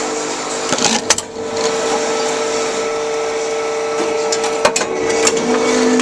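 Old Tomra T-x2 reverse vending machine running with a steady mechanical hum, with a few sharp clicks and clunks about a second in and again near the end. The machine is jammed with a plastic bottle lodged inside.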